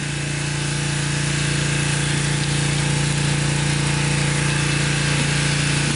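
A small engine running steadily: a constant even drone that holds one pitch throughout.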